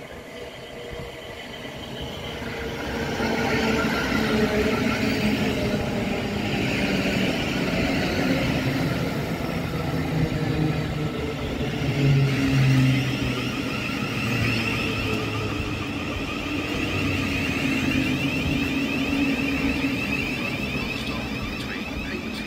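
Thameslink Class 700 electric multiple unit running along the platform: the rumble of its wheels on the rails, with a high electric whine from the traction equipment. It grows louder over the first few seconds as the train comes alongside, then holds steady.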